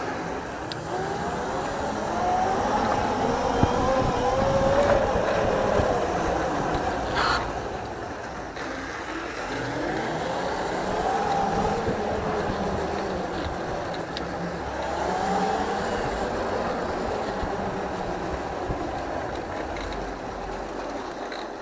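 An engine running continuously, its pitch rising and falling again and again as the revs change, with one short sharp noise about seven seconds in.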